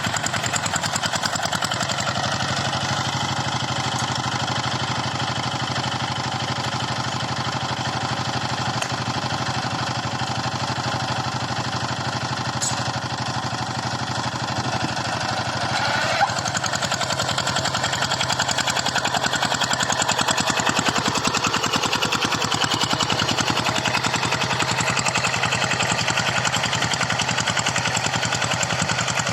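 Tractor engine running steadily while plowing, a fast even chugging, with one sharp click about halfway through.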